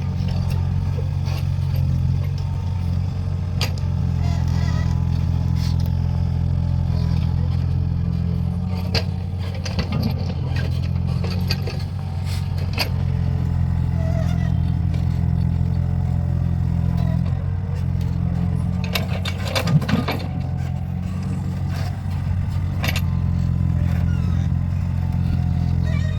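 Mini excavator's diesel engine running steadily, its load shifting every few seconds as it digs. Scattered sharp clanks and knocks, with a cluster of them about two-thirds of the way through.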